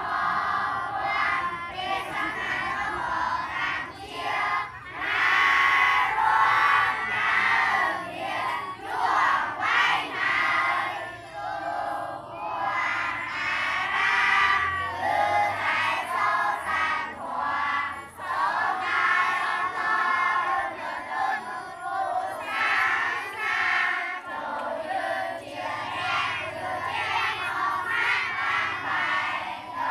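A large crowd of people shouting and cheering together, swelling and falling in waves.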